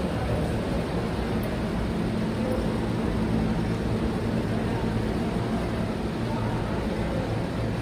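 Steady low rumble and hum of an underground subway station, with no distinct events.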